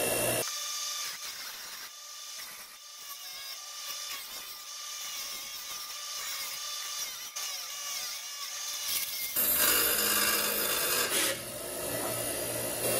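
Power grinding during metal surface prep: a motor-driven abrasive tool runs with a high whine, stops abruptly about half a second in, leaving a long stretch of quieter scraping and rubbing of metal, then starts grinding again loudly about nine seconds in.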